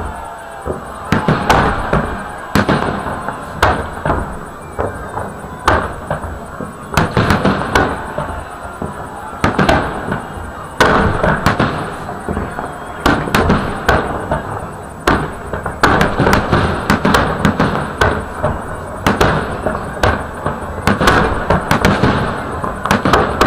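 Fireworks salute volleys: shells launched and bursting overhead in an irregular run of loud booming bangs, roughly one a second, each trailing an echo over a continuous rumble.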